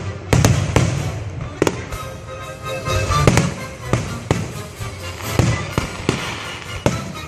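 Fireworks going off: a string of sharp bangs, about eight over several seconds, spaced irregularly, with music playing underneath.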